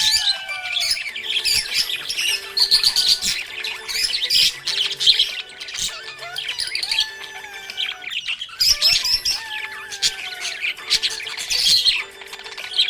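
A flock of budgerigars chirping and chattering nonstop, a dense tangle of quick high chirps, warbles and squawks.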